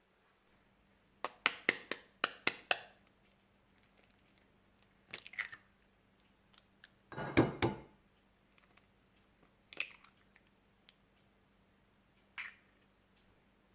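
Kitchen handling sounds of baking preparation: a quick run of about six sharp snaps or clicks a little over a second in, then scattered knocks, with the loudest a short, fuller rustling knock in the middle.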